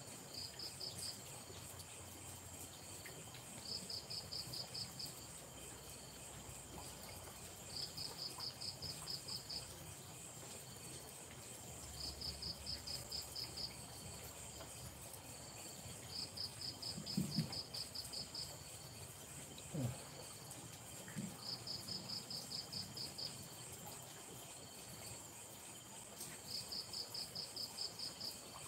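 A cricket chirping in regular bursts of about eight quick high pulses, repeating roughly every four seconds, over a steady high whine of other night insects. Two brief low knocks come a little past the middle.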